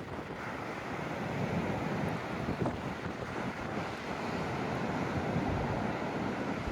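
Ocean surf washing in steadily under a strong wind, with gusts buffeting the microphone in low, uneven rumbles.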